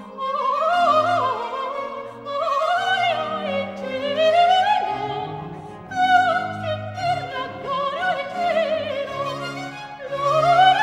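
Background music: an operatic voice singing a flowing melody with strong vibrato over an orchestral accompaniment of sustained low notes.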